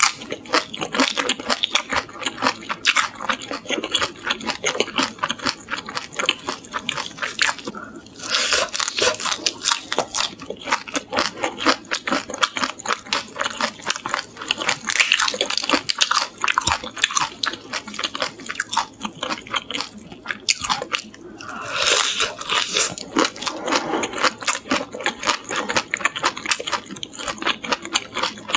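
Close-miked crunching and chewing of butter-fried shrimp heads, the shells cracking between the teeth in quick, continuous crunches, louder about eight seconds in and again about twenty-one seconds in.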